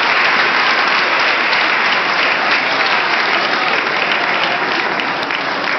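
Audience applauding: steady, dense clapping from a crowd in a large hall, tapering slightly near the end.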